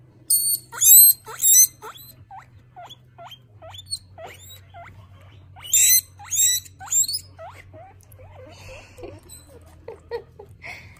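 Guinea pig squealing: loud, high-pitched squeals in a cluster near the start and again about six seconds in, with a run of quieter, short rising squeaks in between and toward the end.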